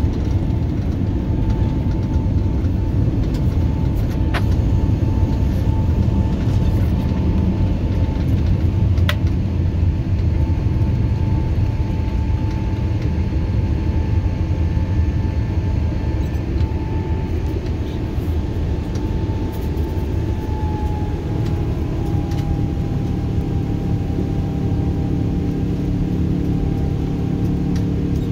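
Jet airliner cabin noise in the climb after takeoff: a steady low rumble of engines and rushing air with a faint whine. About twenty seconds in, the whine drops slightly in pitch and the noise eases a little.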